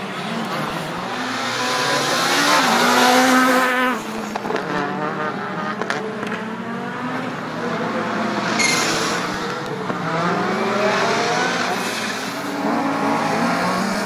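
Škoda Fabia rally car's turbocharged four-cylinder engine revving hard. The pitch climbs to a peak, drops sharply about four seconds in, then climbs again. A brief sharp burst of noise comes about halfway through.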